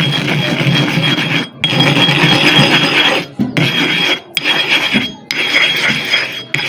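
Gritty scraping of a sharpening stone being ground back and forth on another stone with loose sand as the abrasive, in about five strokes with short pauses between them.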